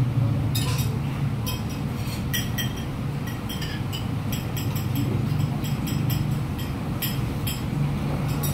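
Spoon and fork clicking and clinking against plates as two people eat, many short light clinks at irregular intervals. A steady low rumble runs underneath.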